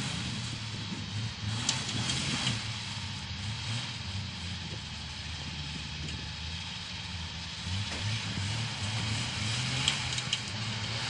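Engine of an off-road Jeep stuck in mud, running at low revs with its note rising and falling a little, plus a few brief clicks.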